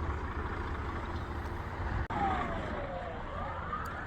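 Steady low rumble of street traffic, then about halfway through an ambulance siren starts up, its pitch sweeping down and then up again.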